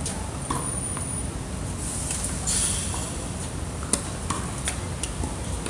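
Tennis ball bounced twice on a hard court ahead of a serve, then a sharp crack of the racket striking the ball on the serve about four seconds in, followed by a few fainter knocks of the ball. A low, steady rumble runs underneath.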